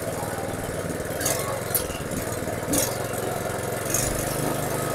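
Honda GX160 single-cylinder four-stroke engine running steadily while driving a power-sprayer pump on a test run, with a few short hisses.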